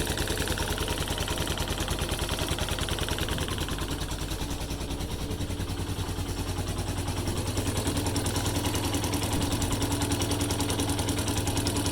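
Viper 150 motorcycle's single-cylinder four-stroke engine idling evenly, with a fast steady beat that dips slightly in the middle. The engine has just been rebuilt with a new camshaft, rocker arms, timing chain, piston and cylinder, and it runs normally.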